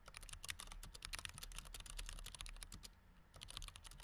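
Faint, rapid run of many sharp clicks, pausing briefly about three seconds in and resuming near the end.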